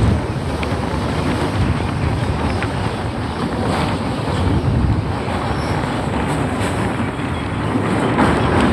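Steady rushing noise of a moving train, with wind buffeting the microphone and a low rumble.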